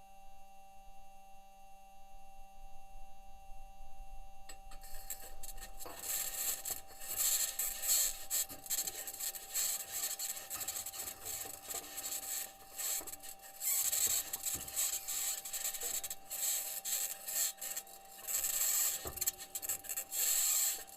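NASA Perseverance rover driving on Mars: its six aluminium wheels scrape, rasp and rattle over rock in uneven surges. The driving noise starts about five seconds in. Before that there is only a steady electrical hum, which keeps running underneath the driving.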